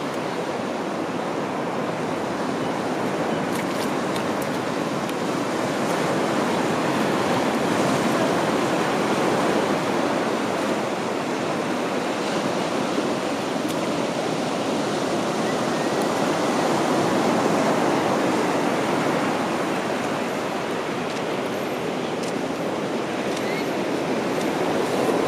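Ocean surf washing onto a sandy beach: a steady rush of noise that swells and eases slowly a few times.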